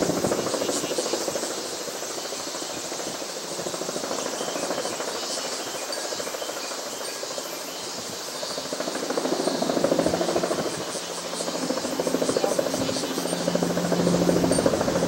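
Helicopter flying overhead, its rotor beating in a fast steady pulse that swells louder about two-thirds of the way in and again near the end.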